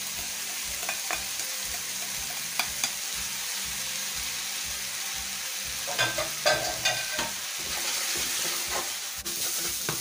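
Carrot and cabbage strips sizzling in a hot frying pan, a steady frying hiss. A spatula scrapes and knocks against the pan as the cabbage is stirred in, with a cluster of clicks about six to seven seconds in.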